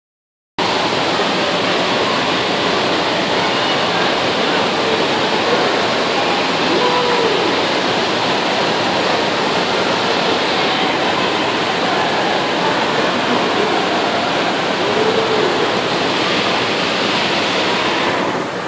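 Steady rushing-water din of an indoor waterpark's pools and water features, starting abruptly about half a second in, with faint distant voices through it.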